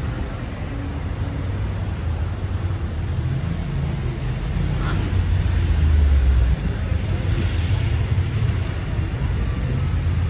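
Low, steady rumble of road traffic and vehicle engines, swelling to its loudest about six seconds in.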